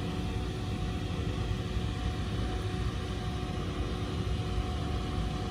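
Steady low machine rumble with a faint constant hum, unchanging throughout.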